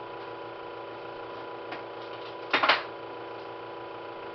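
A steady electrical hum with a few fixed tones, broken about two and a half seconds in by a brief clatter of sharp clicks, with a fainter click shortly before.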